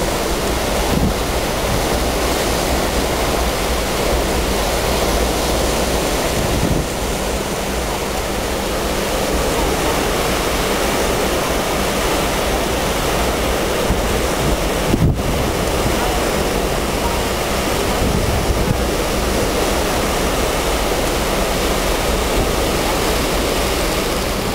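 Steady rush of the churning wake behind a car ferry's stern, with wind buffeting the microphone.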